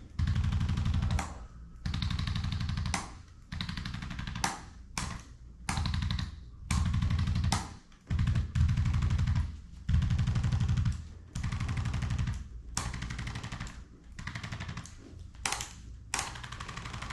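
Handheld percussive chiropractic adjusting instrument firing in bursts of very rapid tapping against the patient's back. Each burst lasts about a second, with short pauses between, and there are about a dozen of them.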